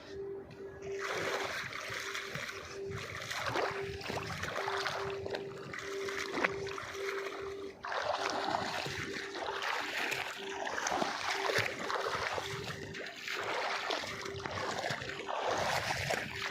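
Water splashing and sloshing in irregular surges, starting about a second in.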